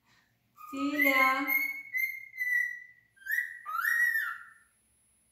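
Pet cockatiel whistling: a held note, then two short notes that rise and fall. A brief voice-like sound comes about a second in.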